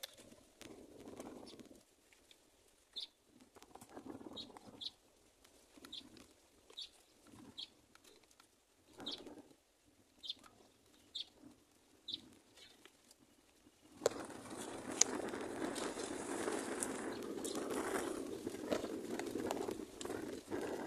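Myna chicks in a nest giving short, high chirps about once a second, with soft scuffling. About fourteen seconds in, a louder, continuous scratchy noise starts abruptly and keeps going.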